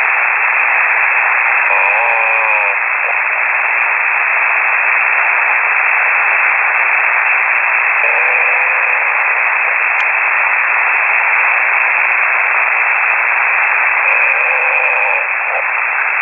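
Steady, loud static hiss from a shortwave ham-radio receiver tuned to a single-sideband voice channel, cut off sharply above the narrow voice band. Faint wavering pitched sounds rise out of the static briefly three times, about 2, 8 and 14 seconds in.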